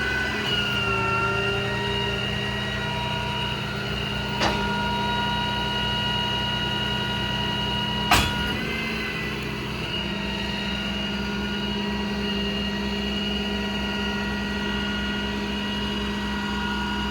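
Ram 5500's Cummins 6.7 diesel running steadily with a constant whine over its hum. Two sharp clicks sound a few seconds apart, the second louder.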